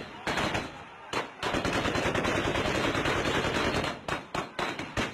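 Heavy gunfire: a few separate shots, then a dense, unbroken stretch of automatic fire from about a second and a half in until about four seconds, then single shots and short bursts again.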